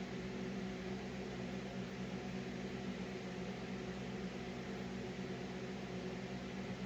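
Steady machine hum with a few fixed low tones under an even hiss, unchanging throughout.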